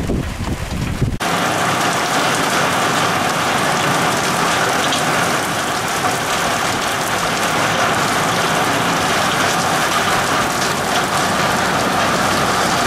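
Wind buffeting the microphone for about a second, then an abrupt switch to the steady hiss of heavy rain falling during a thunderstorm.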